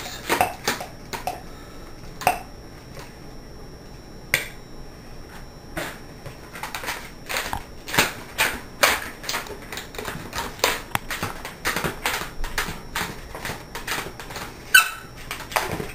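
A hand balloon pump puffs air into a clear latex balloon for a few strokes at the start. After a quieter stretch, hands rub and tap the balloon, making irregular short clicks, several a second, through the second half.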